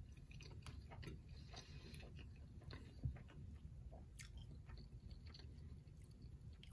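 Faint closed-mouth chewing of a mouthful of omelette, with scattered small wet clicks and one soft thump about three seconds in.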